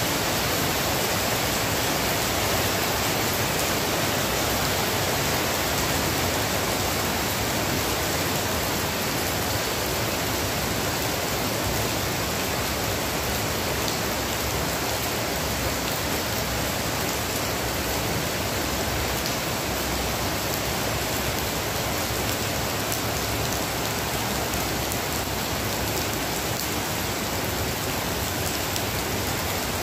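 Heavy rain pouring steadily onto wet concrete paving and palm fronds.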